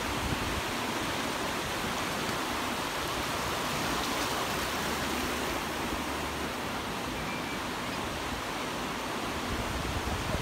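Ocean surf breaking and washing onto a beach: a steady, unbroken rushing noise.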